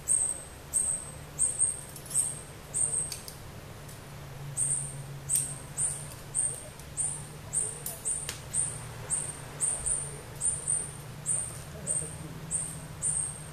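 A small animal calling with a rapid series of short, very high-pitched chirps, about two a second, that pause briefly about two seconds in and then pick up again. A faint steady low hum runs underneath.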